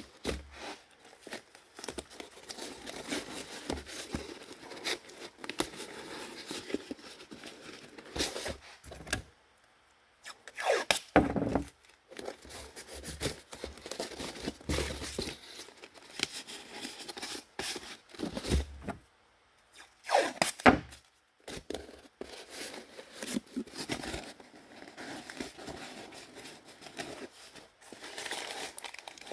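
Blue painter's tape pulled off the roll in strips and torn off, over and over, with the cardboard it is wrapped around rustling and knocking as it is handled.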